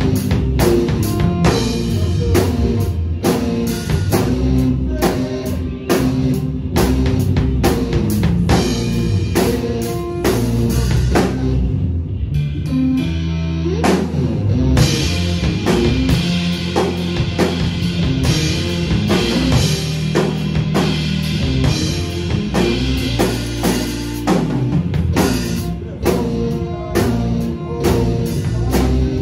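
A band plays live: an electric Telecaster guitar and a drum kit, with bass notes underneath. Around twelve seconds in the drums drop out for about two seconds while the guitar and bass carry on, then the kit comes back in.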